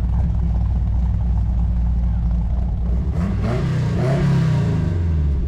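A motor vehicle engine running with a steady low rumble. About three seconds in, a louder engine note rises and then falls away, with its pitch changing.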